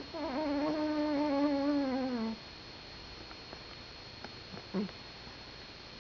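A sleeping cat snoring: one long pitched snore of about two seconds that sinks in pitch as it ends, then a short, softer one near the end.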